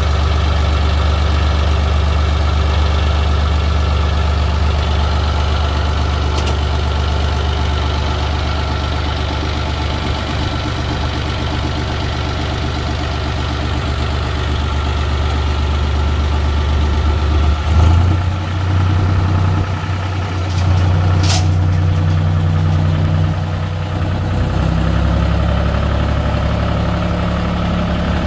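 John Deere utility tractor's diesel engine idling steadily. Past the middle the engine speed rises a little for several seconds, then drops back, with one sharp click in between.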